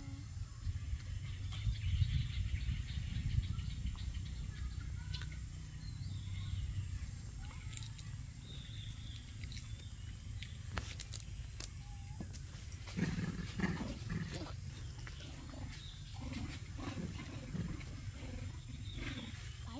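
A few short macaque calls, with a cluster about two-thirds of the way in and a rising-then-falling call near the end, over a steady low rumble and faint high bird chirps.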